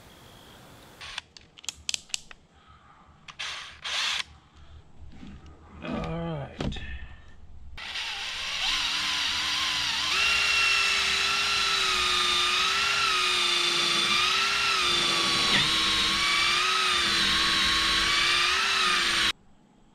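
Cordless drill boring a wire hole through a boat's fibreglass deck: the motor spins up, runs steadily with a slightly wavering whine for about ten seconds, and stops abruptly near the end. Short clicks and knocks of tool handling come before it.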